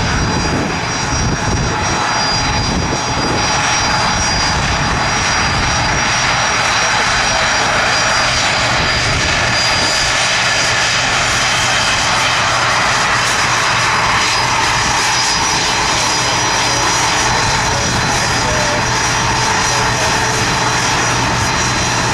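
Turbofan engines of a Bombardier CRJ regional jet at taxi power: a steady jet whine with high-pitched tones over a broad rush.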